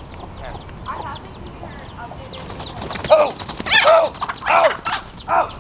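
A hen squawking loudly in a string of four or five calls from about three seconds in, as it attacks a person who came too close to its chicks. Small high peeping chirps run throughout.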